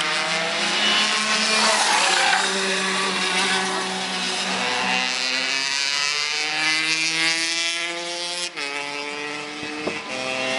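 Several racing go-kart engines running at once, their pitch rising and falling as the karts accelerate and slow through the corners. One engine's pitch drops sharply about eight and a half seconds in.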